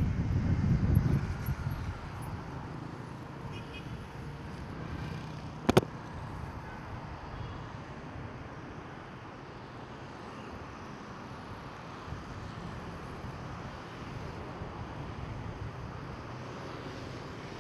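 Steady city street traffic noise. Wind buffets the microphone for the first second or so, and there is a single sharp click about six seconds in.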